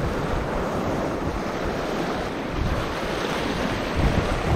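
Sea waves washing and breaking over shoreline rocks, a steady rushing of surf, with wind buffeting the microphone.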